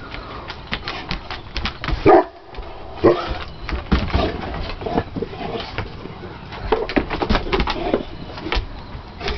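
English Mastiffs barking a few times while they play, the loudest bark about two seconds in, over clicking claws and knocks of a ball on wooden deck boards.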